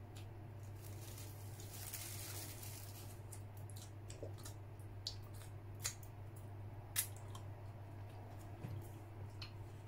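Mouth sounds of someone eating a soft cream bun: quiet chewing and finger-licking with wet smacks and clicks, the sharpest two about six and seven seconds in, over a low steady hum.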